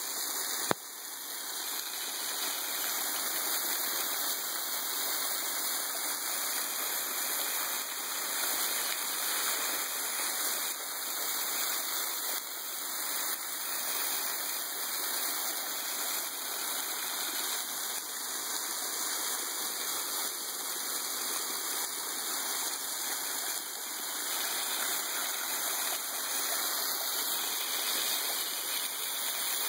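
A waterfall pouring down right in front, a steady rushing splash of falling water, heard from behind the water curtain. A single sharp click about a second in.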